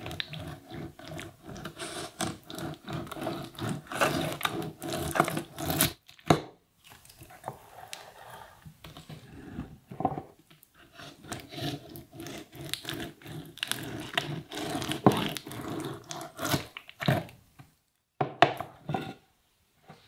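Uncapping knife and uncapping fork scraping and tearing the wax cappings off a frame of honeycomb: runs of short, rough scraping strokes, with a brief pause about six seconds in and another near the end.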